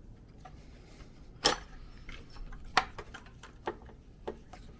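A few sharp clicks and knocks of hand tools and parts being handled while working on a Subaru EJ207 engine's timing belt, the loudest two about a second and a half and three seconds in.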